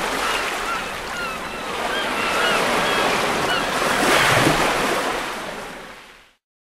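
Ocean surf washing in, a steady rush that swells about four seconds in, with short chirps over it; it fades out near the end.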